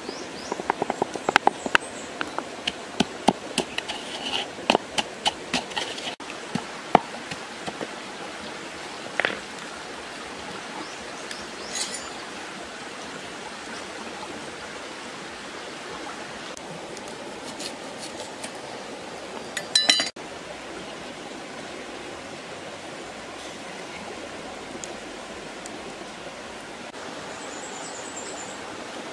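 A wooden spatula knocking and scraping against a clay mortar of pounded chili, in quick irregular strikes over the first several seconds, with a few more knocks later. A stream runs steadily throughout.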